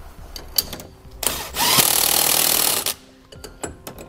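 Cordless impact wrench running for about a second and a half, hammering a nut tight on a new bolt in the trailer's leaf-spring suspension hanger. A few light metal clicks of the socket and hand wrench come before it.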